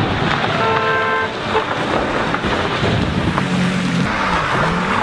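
Ferrari Enzo's V12 engine being driven hard on a wet, muddy dirt track, over a constant hiss of tyre spray and gravel. There is a short steady high note about a second in, and near the end the engine note dips and climbs again.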